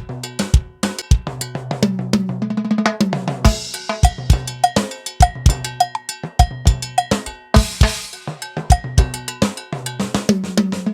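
Timbales, cowbell and drum kit played together in a steady, busy groove, kick, snare, timbale shells and bell all sounding at once: the full-mix pass of a sound check.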